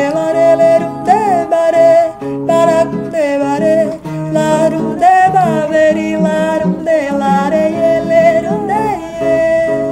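A xote song: acoustic guitar (violão) playing the accompaniment under a voice singing the melody without words, in long held notes with a wavering pitch.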